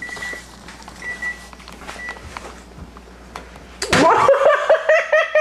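Oven or kitchen-appliance timer beeping, short high single-tone beeps about once a second, three times, over a low appliance hum. Near the end a person laughs loudly.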